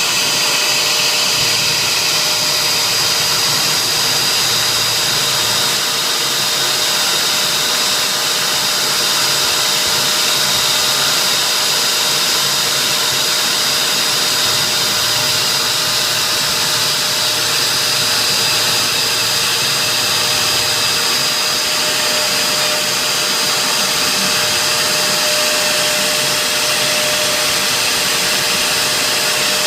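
CNC router spindle running steadily, a constant high whine over a steady rushing noise.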